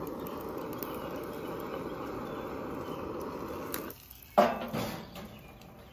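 Handheld butane torch burning with a steady hiss as it relights hickory wood chips in a foil pouch; the flame shuts off abruptly near the end. A short loud sound follows about half a second later.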